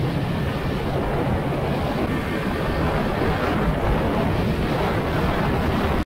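2006 Yamaha FZ1N's 20-valve inline-four engine running steadily while the bike is ridden along the road, mixed with wind and road noise on the bike-mounted microphone.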